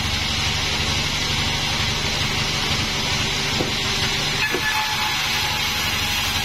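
Engine-driven band sawmill running with a steady low throb and an even hiss of the blade sawing through a Bayur log. Two faint knocks come about three and a half and four and a half seconds in.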